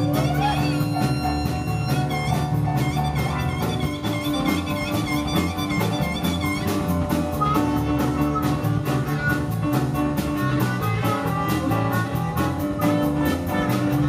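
Live blues band playing: an amplified blues harmonica played with hands cupped around a vocal microphone, over a drum kit and keyboard.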